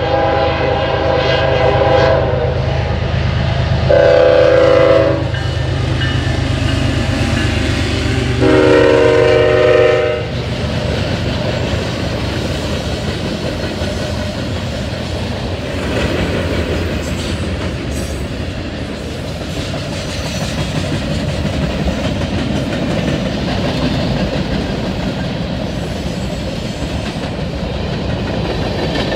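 Freight train's diesel locomotive horn sounds a long blast and then two shorter ones over the engines' low rumble. The train's freight cars then roll past with a steady clatter of wheels on rail.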